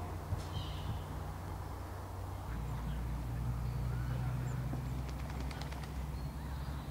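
Ducks quacking on a pond, with a short run of quacks near the end, over a steady low hum.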